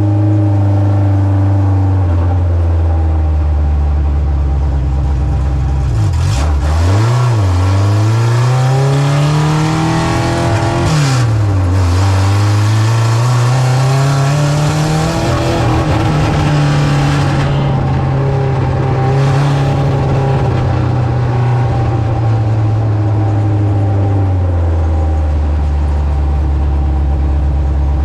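A dirt-track race car's engine running under hard throttle. The revs drop sharply and climb again twice, then hold fairly steady before falling off near the end, like lifting into corners and accelerating down the straights.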